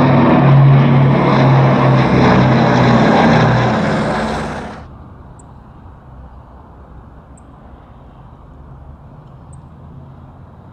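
Boeing B-29 Superfortress's four Wright R-3350 radial engines and propellers running loudly, with a low steady hum, as the bomber passes overhead. About five seconds in, the sound cuts off suddenly to a much fainter, distant rumble.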